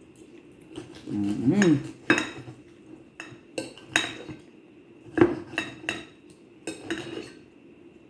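Knife and fork scraping and clinking against a plate in a string of short, irregular strikes as ribeye steak is cut away from its fat.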